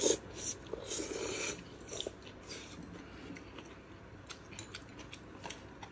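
Quiet eating sounds: noodles slurped, with a longer slurp about a second in, then chewing and a few light clicks of chopsticks against bowls.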